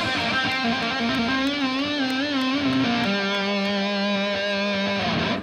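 Amplified electric guitar holding sustained notes with a wavering vibrato, stepping down to a lower, steadily held note about three seconds in.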